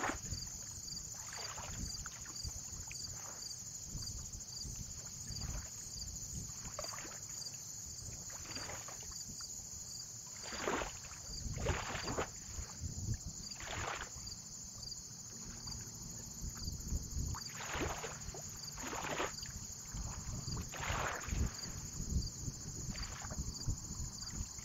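Water sloshing and splashing in short irregular swishes every second or two, over a low wind rumble and a steady high-pitched whine.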